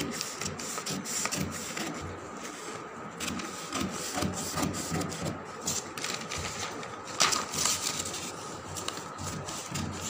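Scissors cutting through brown pattern paper: a run of irregular crisp snips with paper rustling, as a drafted back pattern piece is cut out along its lines.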